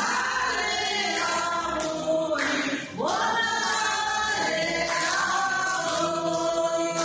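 A group of men and women singing together and clapping along.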